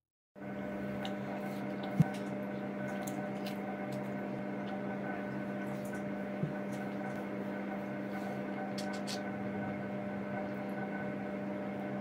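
A steady low electrical hum, like a running kitchen appliance or mains hum, broken by one sharp click about two seconds in and a softer knock a few seconds later.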